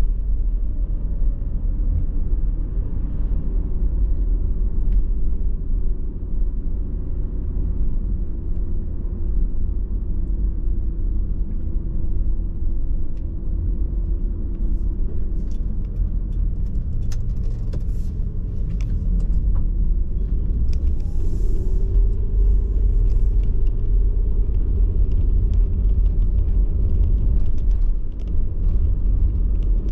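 Car driving, heard from inside the cabin: a steady low rumble of road, tyre and engine noise with a faint hum that drifts slightly in pitch. A few light clicks and ticks come about halfway through.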